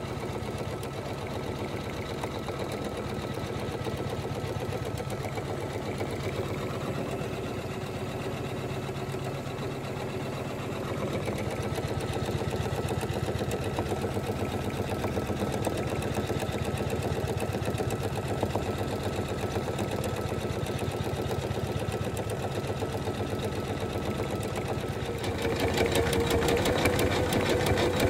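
Janome 500E embroidery machine running, stitching out a design: a rapid, steady patter of needle strokes over a low machine hum. It gets louder, with a stronger hum, for the last few seconds.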